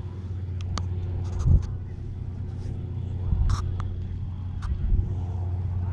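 Small helicopter's engine and rotor running in a steady low drone as it lifts off and hovers, with a few low bumps of wind on the microphone.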